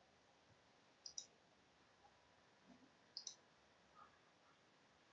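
Near silence broken by faint, sharp double clicks, twice: once about a second in and again about three seconds in.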